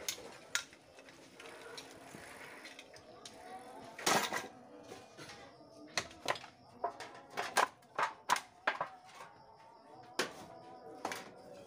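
Metal knocks and clatter from scrap rice cookers being taken apart by hand: a loud ringing strike about four seconds in, then a quick run of about eight knocks between six and nine seconds, and a few more as pieces are tossed into a cooker shell near the end.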